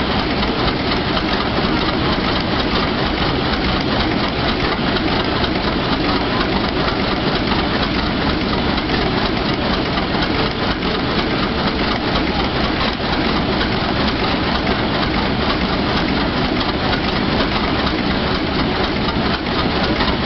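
Large old inline multi-cylinder engine on a logging machine running steadily, with a loud, even clatter from its open valve gear.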